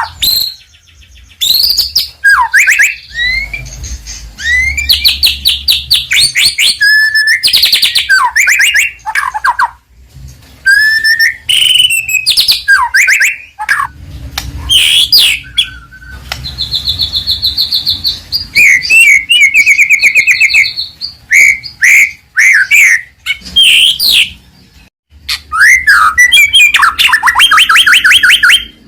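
White-rumped shama (murai batu) singing loudly in full song: varied whistled phrases and sweeping slurs, mixed with fast rattling runs of repeated notes, broken by short pauses.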